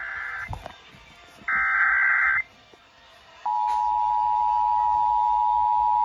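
Emergency Alert System test signal playing through a small clock radio's speaker from an FM broadcast: the end of one burst of the buzzy digital SAME header, then a full burst, then about three and a half seconds in the steady two-tone EAS attention signal starts and holds. It marks the start of a Required Monthly Test.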